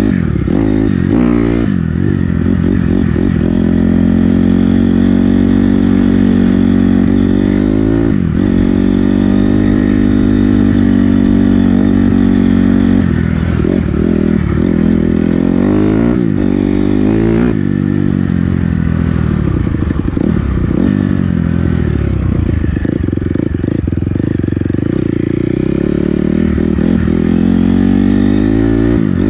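Small motorbike engine running under riding load, with long steady stretches broken several times by the engine revving up and dropping back as the throttle is opened and closed.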